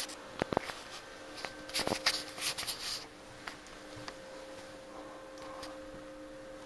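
Handling noise from a handheld camera being carried and swung about: a couple of sharp clicks about half a second in and a spell of rustling around two to three seconds in, over a steady low hum.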